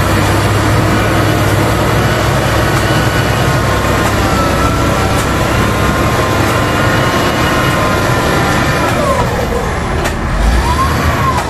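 LiuGong wheel loader's diesel engine running steadily under load as it pushes soil, with a high whine that drops in pitch about nine seconds in, then rises and falls again near the end.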